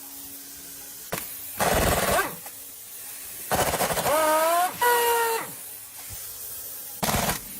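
A pneumatic impact wrench firing in five short bursts, the hammering rattle of each lasting under a second. In two of the bursts the motor's whine rises and then holds. A faint steady hum runs underneath.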